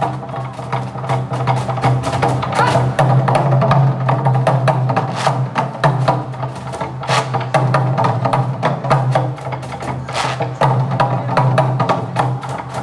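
An ensemble of Korean barrel drums (buk) played with sticks in a fast, driving rhythm, dense with sharp, clacking strikes. A steady low tone runs underneath.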